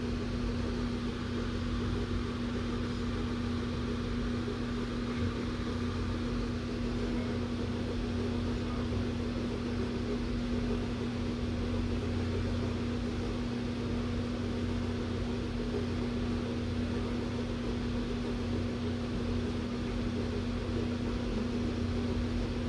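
A big electric room fan running steadily: an even rush of air with a constant low motor hum.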